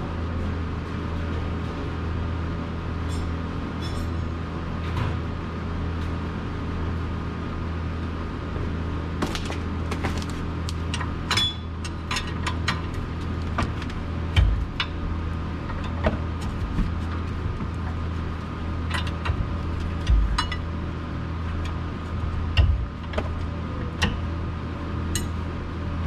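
Scattered metallic clicks and clinks of a hand wrench working the bolts on a car's rear brake caliper, with a few dull thumps, over a steady low hum.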